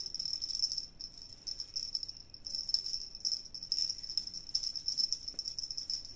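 Steady, high-pitched insect trill made of rapid pulses, running without a break.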